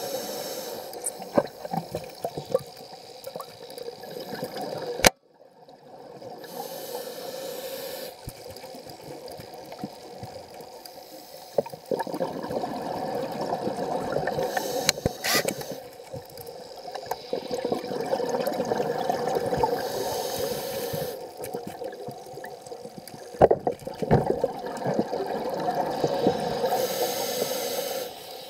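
Muffled underwater sound picked up by a submerged camera: a steady watery hum with a few sharp clicks and knocks, its level changing abruptly a few times.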